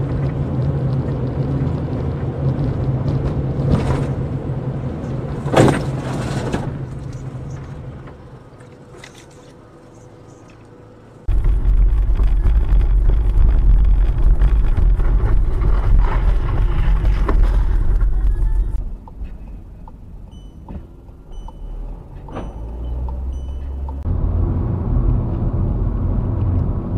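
Car driving noise heard from inside on dashcam recordings, a steady low engine and road rumble that changes abruptly several times as the clips cut. A sharp bang about five and a half seconds in, and a run of short high electronic beeps about twenty seconds in.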